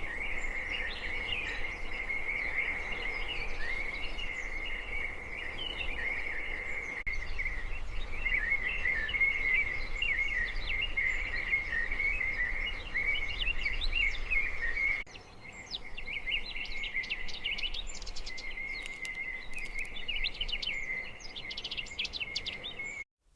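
Many birds chirping at once in a dense, steady chatter, with sharper single chirps standing out in the later part. The sound changes abruptly about two-thirds through, then cuts out briefly just before the end.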